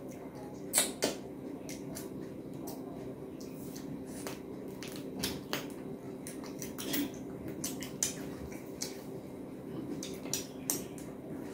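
Close-miked mouth eating sounds: chewing, wet lip smacks and crunches while eating rice and prawn curry by hand, with scattered sharp clicks, the loudest a pair about a second in. A steady low hum runs underneath.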